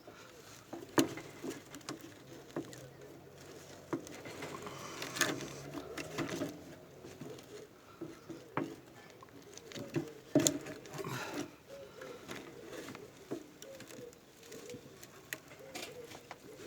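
Irregular clicks, knocks and scrapes of a radiator core being handled and clamped in a small bench vise, metal pressed down to crimp leaking tubes shut.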